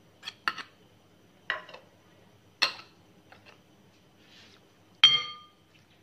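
Metal spoon clinking against a bowl while salad is added and tossed: a handful of light, separate clinks. The last one, about five seconds in, is the loudest and rings briefly.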